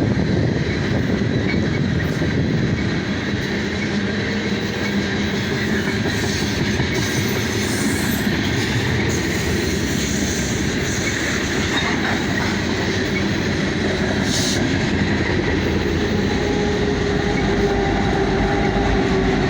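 Loaded coal train rolling past at close range: a steady, even noise of steel wheels on rail that holds at one level throughout, with faint held tones underneath.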